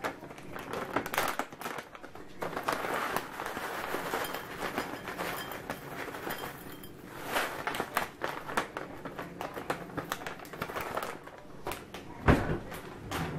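Crinkly plastic bag rustling as granola is shaken out of it and pours into a ceramic bowl, with a single thump on the counter near the end.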